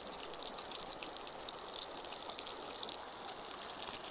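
Butter and oil sizzling in a cast iron skillet with a frying trout, a steady hiss dotted with small crackles, over the steady rush of a stream.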